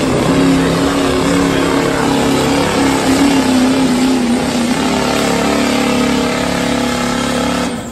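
Chevrolet Silverado pickup's Duramax diesel engine running hard at high revs under full load, dragging a truck-pulling sled. Its pitch sags briefly around the middle and then holds. Near the end the engine drops off sharply as the throttle is released at the end of the pull.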